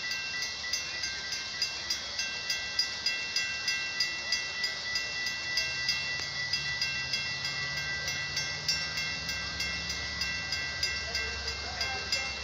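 Railroad crossing warning bell ringing at an even, quick rhythm of about two and a half strikes a second. From about halfway in, a low rumble builds under it as a Metra train approaches the crossing.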